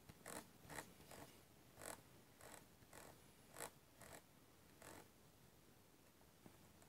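Faint clicks from a Jumper T16 radio transmitter's scroll control as a setting value is rolled, about ten sharp ticks at uneven spacing that stop about five seconds in.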